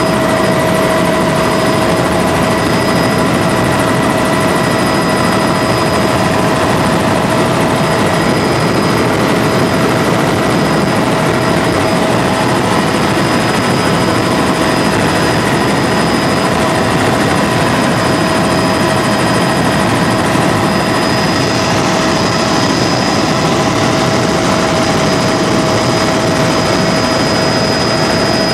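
Helicopter in steady flight, heard from inside the cabin: a constant loud drone of rotor and engine with steady whining tones over it.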